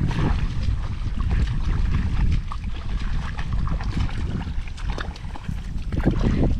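Wind buffeting the microphone in a heavy low rumble, with scattered splashes and sloshing from bare feet wading through shallow muddy water.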